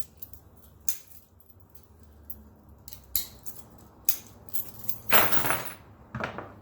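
A key working a small 5-pin pin-tumbler cabinet lock: scattered sharp metallic clicks, then a louder scraping rattle about five seconds in and a shorter one near the end.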